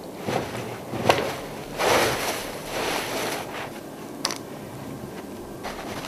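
Snow crunching and scraping as plastic maple sap tubing is pulled and broken free of the snow, with a few sharp snaps and two longer crunching rushes near the middle.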